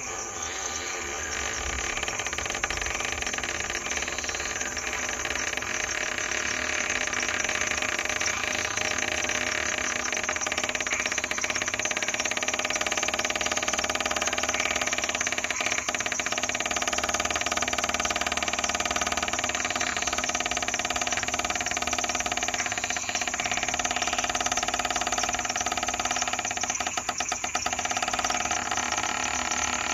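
Night chorus of frogs calling without a break, many steady trilling tones layered over one another. A short, fast rattle of clicks cuts through about 27 seconds in.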